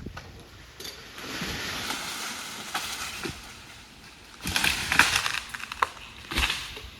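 Wood and branches cracking and crunching, with loud bursts of snapping about four and a half seconds in and again near the end.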